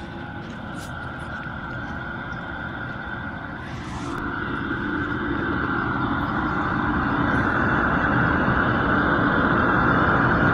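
Steady rushing noise that grows louder, from the furnace's outside exhaust vent blowing, with wind buffeting the microphone.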